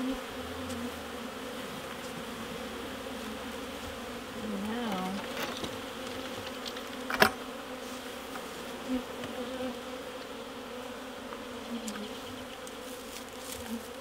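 Honey bees buzzing in a steady hum around an open horizontal hive, with one sharp knock about seven seconds in as the hive's lid is shut, and a few lighter clicks after it.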